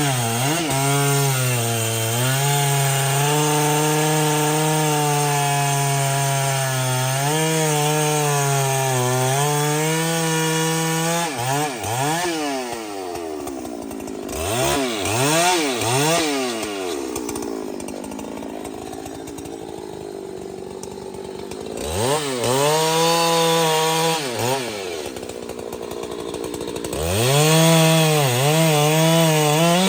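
Large two-stroke chainsaw cutting trembesi wood at high revs, its pitch sagging and recovering under load. About halfway it is revved up and down and drops to a lower, quieter running speed for a few seconds, then revs up again and is back at full speed near the end.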